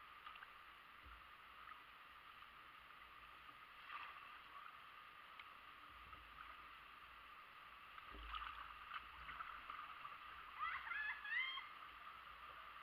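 Faint creek water running and rippling around a paddled kayak, a steady hiss with a few light splashes and knocks. Near the end comes a quick cluster of short, high, gliding calls.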